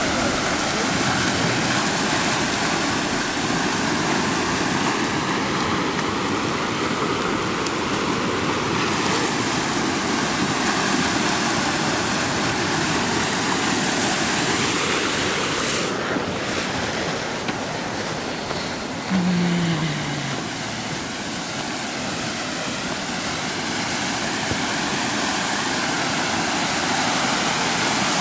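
A steady rushing noise with no break, and a brief low falling tone about two-thirds of the way through.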